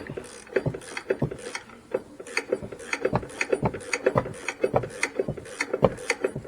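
Hand ratchet clicking in quick, uneven strokes as it backs off tight self-locking strut mount nuts, which have to be wrenched all the way off.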